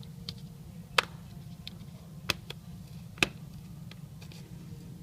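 Sharp plastic clicks and snaps as the clips of a Samsung Galaxy Tab 4 10.1's back cover are pried loose, three louder ones about a second apart with fainter ticks between. A low steady hum runs underneath.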